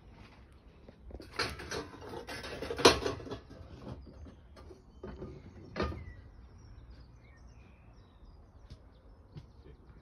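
Rustling and handling noise close to the microphone, loudest from about one to three seconds in with a sharp knock near three seconds and another knock about six seconds in; faint background otherwise.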